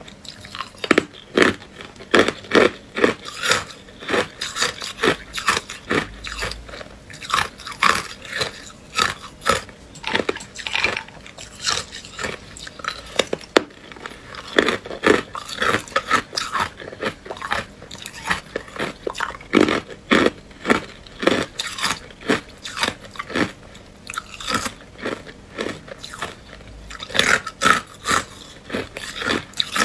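Hard clear ice cubes bitten and crunched between the teeth: sharp crunches, several a second, coming in clusters with short pauses between.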